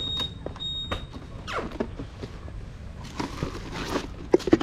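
Two short high electronic beeps, then clicks, and near the end a few sharp thunks as the scooter's seat is lifted open to reach the under-seat storage.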